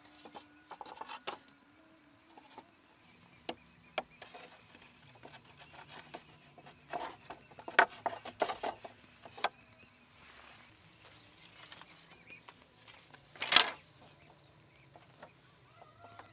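Bamboo poles knocking and rubbing against a bamboo frame as a brace is fitted into place: scattered light taps, a quick flurry of knocks partway through, and one louder knock near the end.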